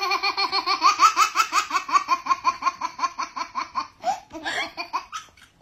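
A high-pitched voice laughing in a rapid, even string of short "ha" pulses, about five a second, breaking into a few separate rising yelps near the end.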